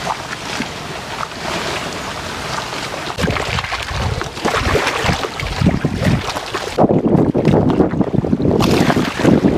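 Wind buffeting the microphone over the sound of choppy lake waves. About seven seconds in, the sound turns dull and heavier for nearly two seconds.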